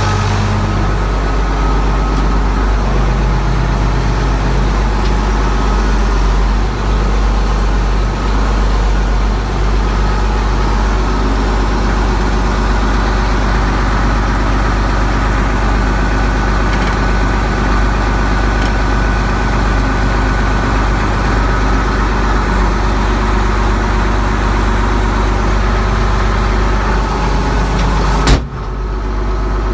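Allis-Chalmers 210 tractor's six-cylinder diesel engine idling steadily, running after its first start following winter storage. A single sharp knock near the end.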